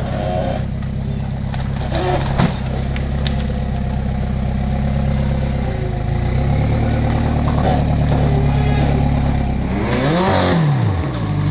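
Rock buggy's engine running at low revs as it crawls down a rock ledge, its pitch stepping lower about halfway through. There is a single sharp knock a couple of seconds in, and near the end a quick rev up and back down.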